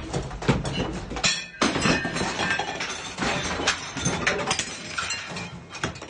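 Rapid clattering, clinking and knocking of household objects rattling and breaking as a room shakes in an earthquake. A low rumble underneath stops about a second in.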